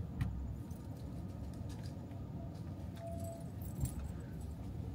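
Brakes of a Tesla Model X making a brief squeak about three seconds in, with a few light clicks over a low, steady vehicle hum.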